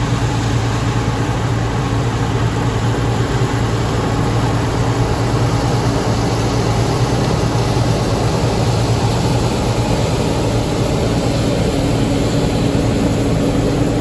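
Tractor engine running steadily under load, heard from inside the cab while it pulls a grain cart: a constant low drone. A higher steady hum grows stronger near the end.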